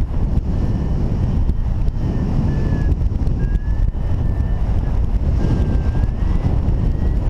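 Wind buffeting the microphone of a camera in paragliding flight: a loud, steady, low rumble. A faint high tone comes and goes over it, sliding up or down in pitch now and then.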